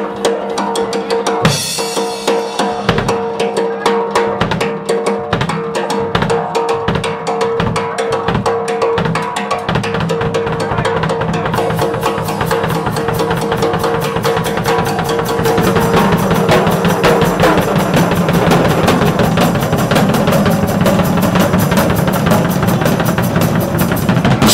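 Live drum solo on a Pearl rock drum kit: quick strokes on the toms and snare with bass drum hits, building about halfway through into a louder, dense fast roll with cymbals ringing over it.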